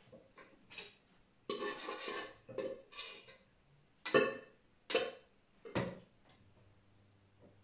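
Pots, dishes and utensils being handled: a series of scattered clinks and knocks, with a longer rattle about one and a half seconds in and the loudest knock about four seconds in.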